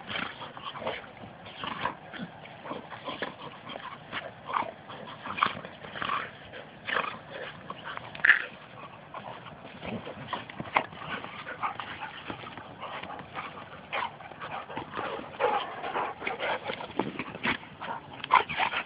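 Dogs play-wrestling, vocalising in many short, irregular bursts throughout.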